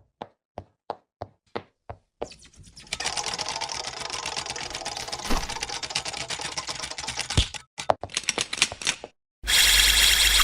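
Typewriter-style clacking: a few evenly spaced single clicks, then a long run of rapid keystrokes. Near the end comes a short, loud burst of noise with a high steady tone.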